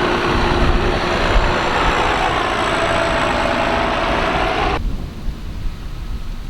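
Tractor-drawn harvesting machinery running: a loud, dense mechanical noise that cuts off abruptly about five seconds in, leaving a low rumble.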